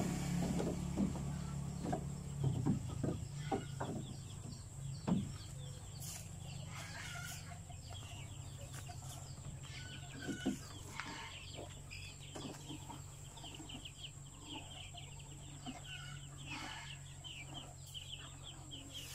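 Chickens clucking and cheeping, many short calls through the second half. In the first few seconds a series of short knocks and rustles from the leafy fodder being handled at the wooden trough, over a low steady hum that fades out about seven seconds in.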